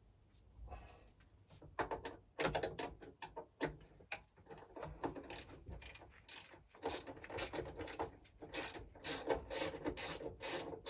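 Hand ratchet clicking as 8mm bolts are undone. Irregular clicks at first, then a steady run of about two to three clicks a second.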